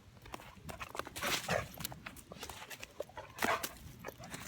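A retriever moving about close by: scuffs and clicks of movement, with louder noisy bursts about a second and a half in and again about three and a half seconds in.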